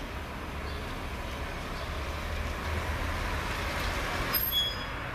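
Steady low rumble and hiss, with a brief high-pitched squeal about four and a half seconds in.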